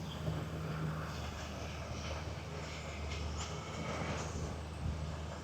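Golf cart driving along, its motor giving a steady low hum.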